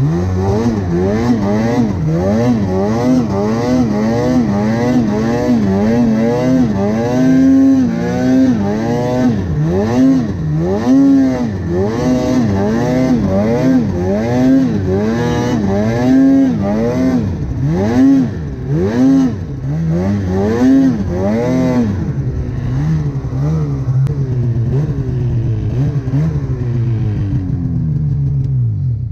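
Snowmobile engine revved up and down in quick repeated throttle blips, a little more than one a second, then held at a steadier speed for the last several seconds.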